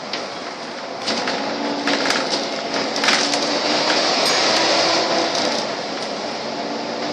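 Volvo double-decker bus under way, heard from the upper deck: steady engine and road noise with a faint hum that shifts in pitch. The noise grows louder about a second in, with clicks and rattles of the body and fittings over the next few seconds.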